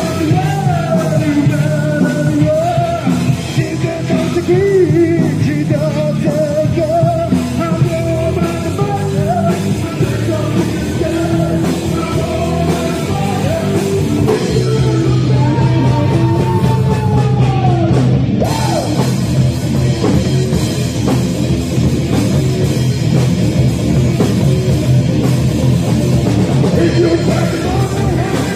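Live rock band playing loud: a lead vocal sung over electric guitar, bass guitar and a drum kit. The singing stops about two-thirds of the way through while the band plays on.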